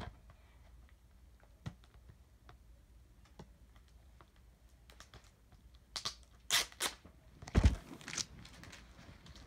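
Security seal on a DVD case being picked at and torn off. Scattered light clicks build to a few loud tearing crackles about six to eight seconds in.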